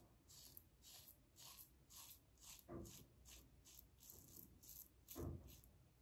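TGS Valynor safety razor with a KAI blade scraping through lathered stubble in short, quick strokes, two or three a second, faint. Two louder dull sounds come about three and five seconds in.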